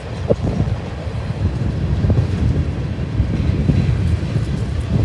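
Freight train cars rolling past close by: a steady low rumble of steel wheels on the rails, with a couple of sharp knocks from the cars, about a third of a second in and again about two seconds in.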